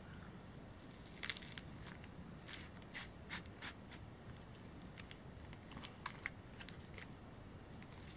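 Faint, irregular crackles and ticks of clear packing tape letting go of 8 mm cotton rope as the cord is pulled free of the tape while tightening a monkey's fist knot.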